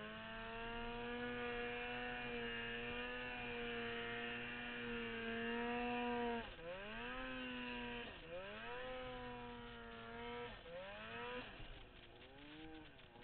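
Turbocharged 2008 Polaris Dragon 800 two-stroke snowmobile engine held at steady high revs for about six seconds. The throttle is then let off and opened again twice, the pitch dropping and climbing back each time, before the revs fall lower and waver near the end.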